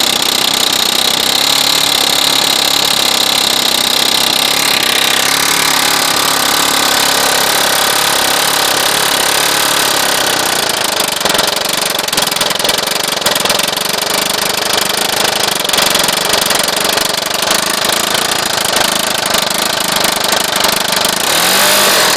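Stroked 6 hp Tecumseh LEV105 single-cylinder mower engine running flat out at a loud, high pitch, dropping lower about five seconds in. From about eleven seconds it runs rough with a rapid, irregular knocking, the engine being run to destruction until it throws its connecting rod.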